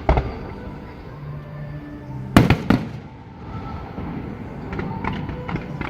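Fireworks going off: a bang at the start, two loud booms close together about two and a half seconds in, then a run of quick crackles near the end.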